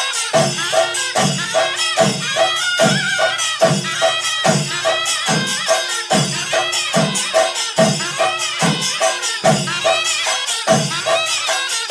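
Kerala temple procession music: drums beat a steady pulse, about three strong strokes every two seconds, under quick jingling cymbal strokes. A wind instrument plays a winding melody over a steady drone.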